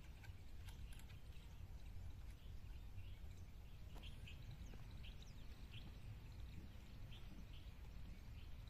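Faint outdoor ambience: a steady low rumble with short high bird chirps repeating every second or so.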